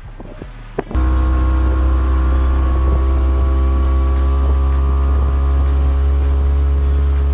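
A boat motor running steadily at speed, cutting in abruptly about a second in with a strong low hum and several held tones that sag slightly in pitch.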